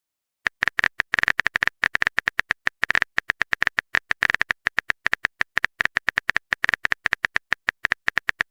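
Rapid, irregular string of short phone-keyboard typing clicks, several a second, starting about half a second in.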